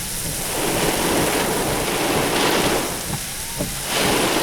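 Heavy thunderstorm rain pouring down steadily, its hiss swelling and easing in waves.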